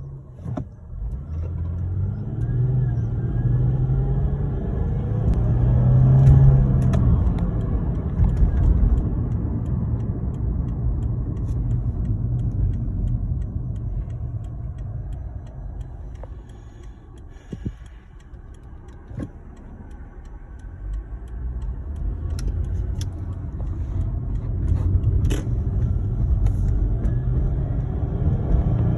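Lexus IS250's 2.5-litre V6 pulling under acceleration in surges, easing off about midway and building again near the end. A faint high-pitched whistle rides over the engine as it accelerates, a new noise of unknown cause on a car that otherwise runs fine with no warning lights.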